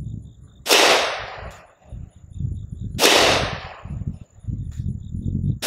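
Glock 40 MOS long-slide 10mm Auto pistol firing 180-grain Freedom Munitions XTP rounds. There are two sharp shots about 2.3 s apart, each with a ringing tail, and a third right at the end.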